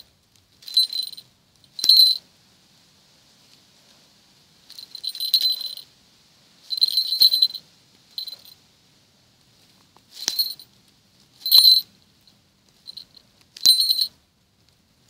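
A small metal falconry bell on a Harris hawk's leg jingling in short, irregular bursts as the hawk shifts its feet gripping a rat.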